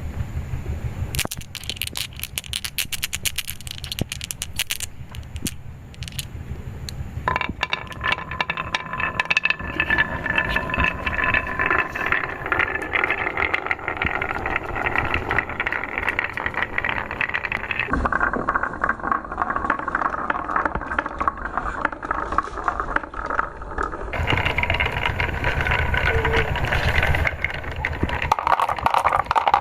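Marble-run balls rolling and clattering down the track in a rapid run of clicks. From about seven seconds in this becomes a continuous ringing rattle that changes character abruptly twice as the balls move onto different sections of the course.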